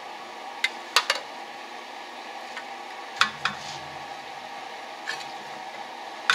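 Sharp metallic clicks and taps, about seven of them at irregular intervals, as the carburetor assembly and its green-painted bracket and plate are handled and knocked together on the bench. A steady background hum runs under them.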